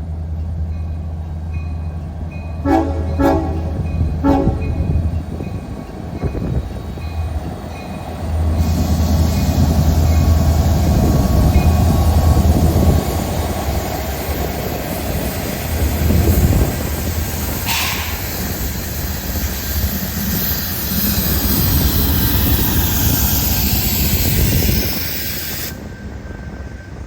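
Union Pacific freight train passing: the lead diesel locomotive sounds three short horn blasts about three seconds in over its engine rumble. Then the rail cars roll by with loud steady wheel noise and one sharp clank partway through, and the noise falls away near the end.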